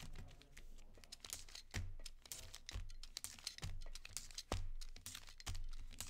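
Hockey card packs being handled and torn open, their wrappers crinkling and crackling, with a light knock on the table about once a second.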